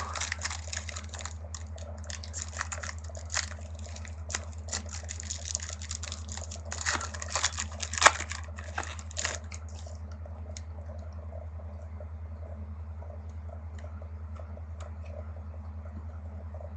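Crinkling and crackling of a trading-card pack wrapper being handled and torn open, over a steady low hum. The crackling stops about ten seconds in, leaving only a few faint ticks.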